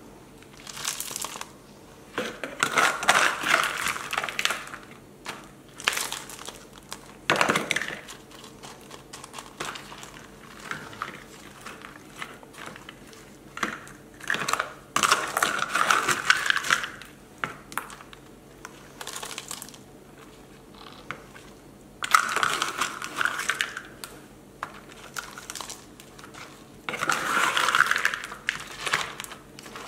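A plastic scoop digging into a bowl of potting mix and pouring it into a clear plastic pot: LECA clay pebbles rattle and bark and coconut fibre crunch. The sound comes in repeated bursts of a few seconds each, with short pauses between.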